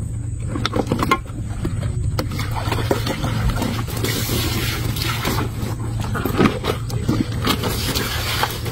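Water pouring and splashing from a plastic mug into a bag in a boat, with a steady low hum underneath.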